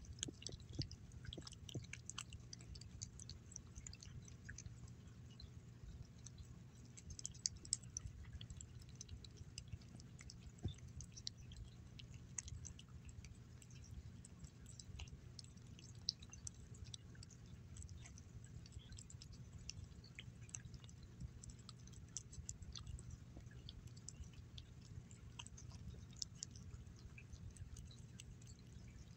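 Gray tabby cat eating salmon cuts in gravy from a glass saucer: faint, wet chewing and licking, many small irregular clicks.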